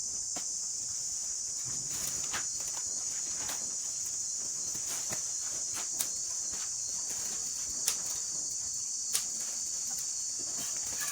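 Steady high-pitched drone of a chorus of insects, with scattered sharp clicks or knocks, three of them louder about six, eight and nine seconds in.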